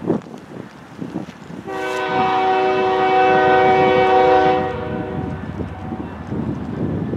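Diesel freight locomotive's air horn sounding one long blast of about three seconds, starting a couple of seconds in and fading away, over low wind rumble on the microphone.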